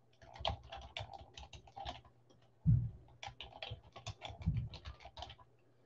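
Typing on a computer keyboard: quick runs of keystrokes in two bursts with a short pause between them, and one heavier thump a little before halfway.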